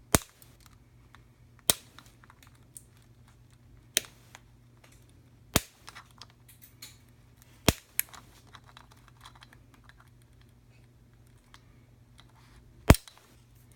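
Flush wire cutters snipping off the over-long legs of a newly soldered footswitch, six sharp snaps a second or two apart with a longer gap before the last one.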